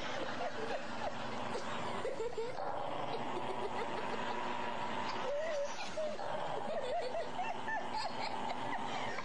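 A dog growling and snarling steadily while chewing a bone, guarding it from its own raised hind leg, with people snickering and laughing.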